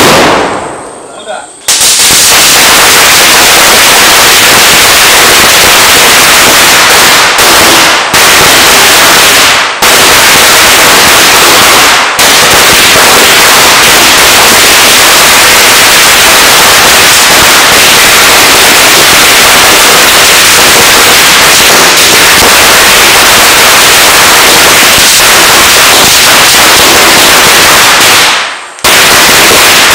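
A long string of firecrackers going off in a dense, unbroken, very loud crackle of rapid bangs. It starts about two seconds in, falters for an instant a few times, and breaks off near the end before the bangs resume.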